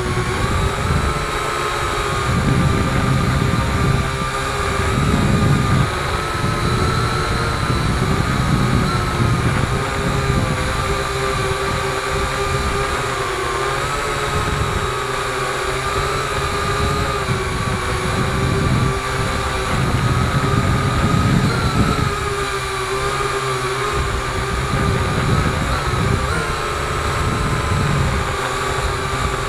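Multirotor drone's electric motors and propellers heard from its onboard camera: a steady whine that wavers slightly in pitch as it climbs. Prop wash rumbles and buffets the microphone underneath the whine.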